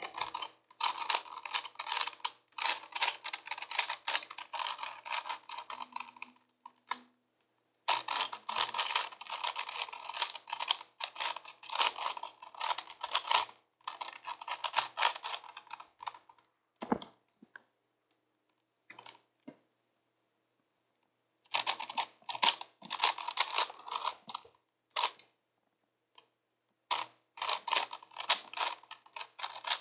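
5x5x5 Rubik's Cube being turned by hand: rapid plastic clicking and clacking of the layers, in bursts of a few seconds separated by pauses, the longest pause about halfway through.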